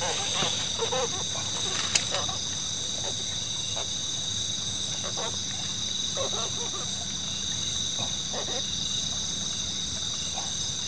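Night insect chorus: a steady, high-pitched trilling in several layers that doesn't let up, with one sharp click about two seconds in.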